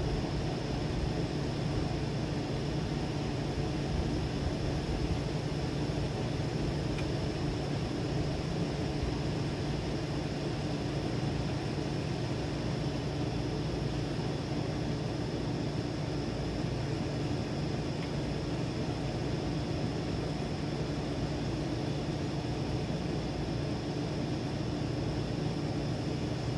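Strong thunderstorm wind blowing steadily, a low rushing noise with no gusts or breaks standing out.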